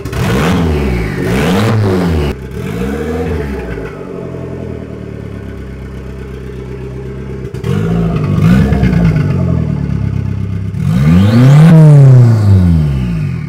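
Turbocharged Mazda Miata four-cylinder engine running through a newly fitted downpipe and being revved. Three quick blips come first, then a short steady stretch, then a rev and a final higher, louder rev near the end.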